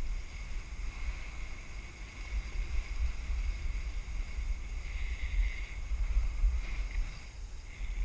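Wind rushing over the microphone of a camera carried by a downhill skier, with skis scraping over packed snow; the scraping swells a few times, about five seconds in and again near the end.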